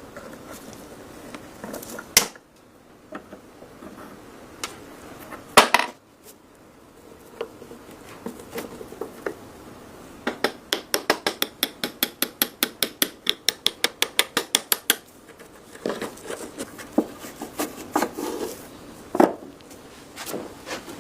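Metal parts and hand tools being handled while restoring a rusty K98 rifle: scattered clinks and knocks, one loud one about five seconds in. In the middle comes a run of quick, even strokes, about five a second, lasting about five seconds.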